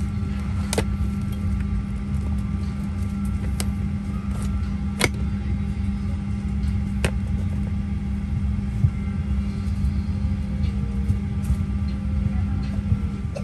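Steady low rumble inside a Boeing 737-800 passenger cabin, with a few sharp clicks and knocks now and then.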